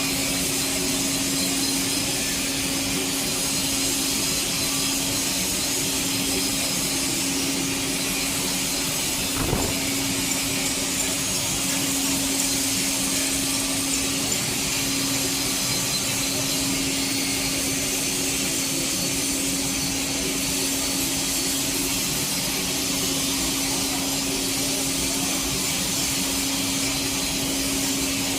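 Welding arc running steadily during the hot pass on a pipe joint: an even high hiss over a steady low hum, with a single click about a third of the way through.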